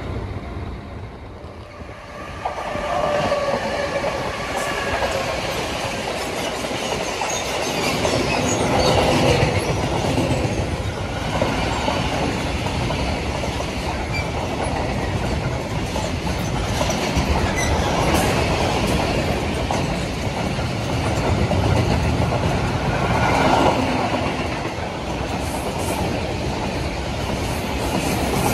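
Two Litra EG electric locomotives, EG 3107 and EG 3103, passing close by on the track. The sound swells about two and a half seconds in into a steady rail rumble, with wheels clicking over the rail joints.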